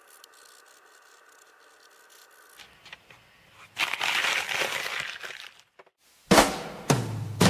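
A pen scratching on notepad paper, faint at first, then a louder stretch of rough paper scratching and rustling for about two seconds. Near the end come two sudden loud hits with a deep low end, about half a second apart.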